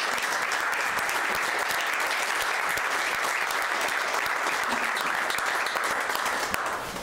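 A room of people applauding, steady clapping of many hands that dies away near the end.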